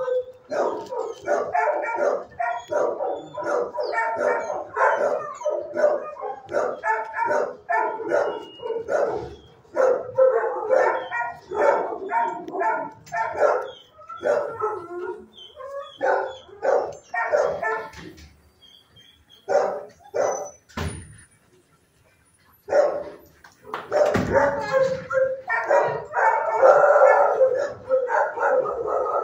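Dogs in shelter kennels barking, a rapid run of repeated barks that stops for a few seconds about two-thirds of the way through, then starts again louder near the end.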